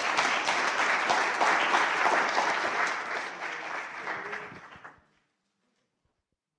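Audience applauding, dying away and ending about five seconds in.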